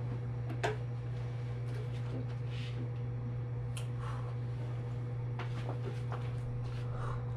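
Steady low hum of room background noise, with a few scattered light clicks and rustles of someone moving about close by.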